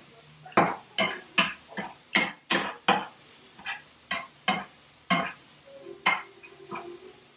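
A fork stirring ground meat in a frying pan, scraping and clinking against the pan in a quick, irregular run of sharp strokes, about two a second.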